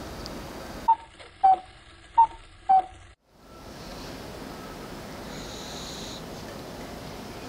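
A sleeping cat snoring faintly under a steady hiss, with one soft snoring breath a little past the middle. About a second in, four short loud tones sound, alternating higher and lower.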